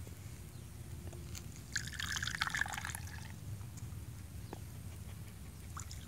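Hot goat-milk tea being poured from a raised cup into another vessel to cool and mix it (the South Indian 'aathu' pour). A splashing pour starts about two seconds in and lasts over a second, with a few faint drips afterwards.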